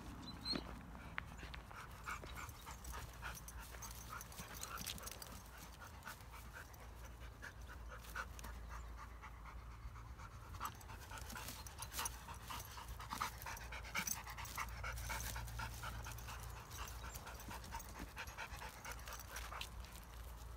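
Kangal dogs panting, with rapid rasping breaths and scattered short ticks and scuffs as they move about.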